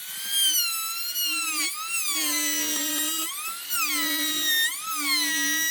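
High-speed electric power tool whining, its pitch dipping and recovering several times as the motor is loaded and let go.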